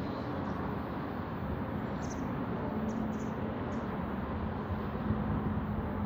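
Steady background noise of distant traffic, with a few faint, short high chirps from small birds about two to four seconds in.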